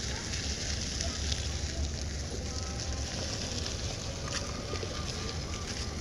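Steady beach ambience: a constant hiss of surf and wind with a low rumble on the microphone, and faint distant voices.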